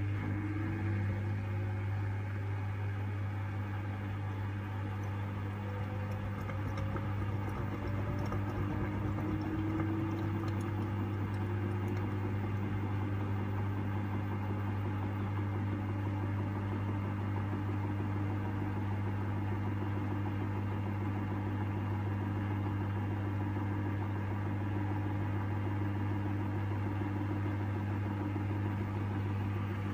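LG TurboWash front-loading washing machine in its intermediate spin: the drum motor's whine rises in pitch over the first dozen seconds as the drum speeds up, then holds steady over a constant low hum.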